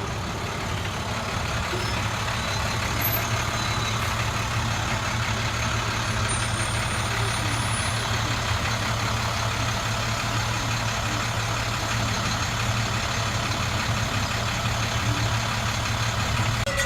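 A truck engine running steadily close by, a constant low hum over even street noise.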